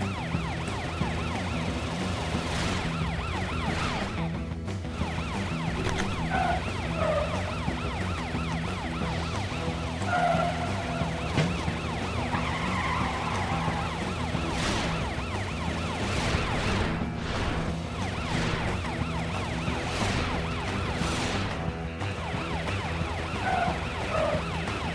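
A cartoon police siren wailing over steady background chase music, with a few brief whooshes of cars speeding past.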